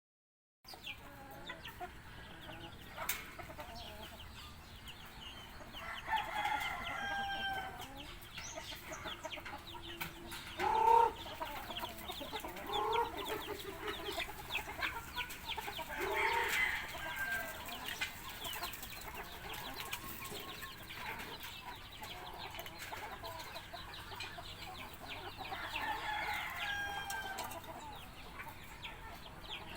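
Chickens clucking, with a rooster crowing three times about ten seconds apart and a loud short squawk in between.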